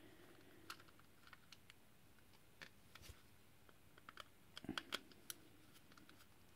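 Faint, scattered clicks and ticks of a precision screwdriver working screws out of a pager's plastic case, with a handful of louder clicks about four and a half seconds in.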